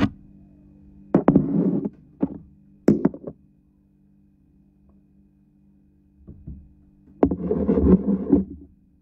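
Knocks and thuds in several short clusters, the longest near the end, over a steady low hum.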